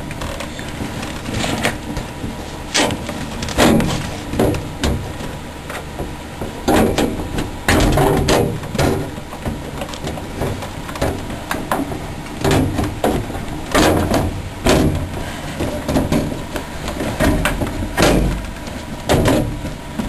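Irregular clicks, knocks and scrapes of hands fitting a clip and panel into place on a desktop PC case.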